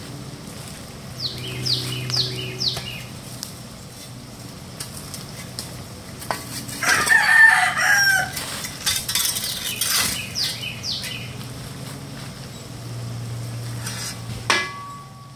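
A rooster crows once, about halfway through, the loudest sound here. Around it a small bird gives short runs of quick, high, falling chirps, and a metal shovel scrapes through coals, with a sharp clank near the end as the coals are tipped into a charcoal grill.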